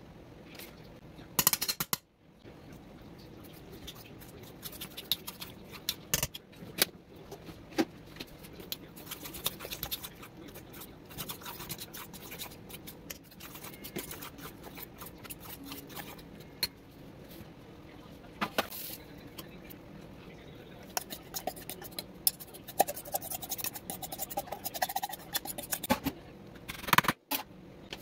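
A utensil stirring thick cornbread batter in a stainless steel bowl: irregular scraping and clicking of metal against the bowl, with two brief breaks.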